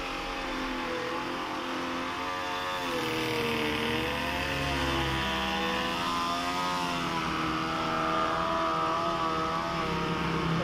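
An engine running steadily, its pitch slowly rising and falling.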